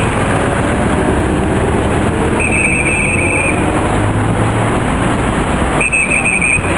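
Two shrill, trilling whistle blasts of about a second each, a few seconds apart, used to signal passing cars on at a pedestrian crossing, over steady road traffic noise.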